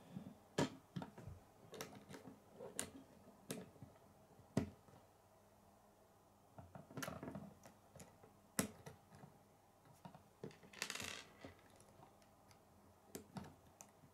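Plastic K'nex rods and connectors clicking and snapping together as they are handled, with sharp clicks and taps at irregular intervals and a short scraping rustle about eleven seconds in.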